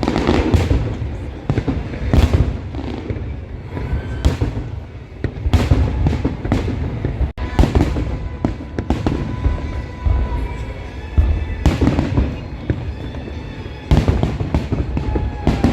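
Aerial fireworks shells bursting: an irregular string of loud bangs, about a dozen, with a low rumble carrying on between them.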